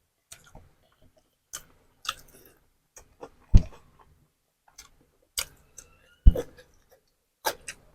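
Eating sounds at close range: irregular short clicks of utensils against a plate mixed with chewing, with two heavier knocks, about three and a half and six seconds in.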